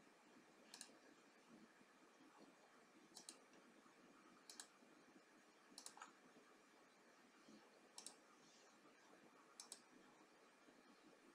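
Faint computer mouse clicks, about six spaced a second or two apart, each one placing the next point of a line in a CAD sketch, over a faint steady hiss.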